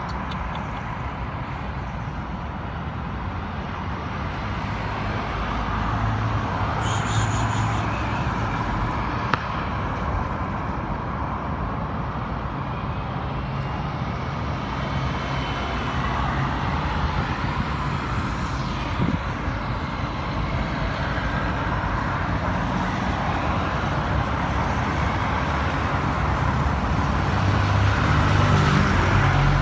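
Steady vehicle rumble with a low hum, growing a little louder near the end.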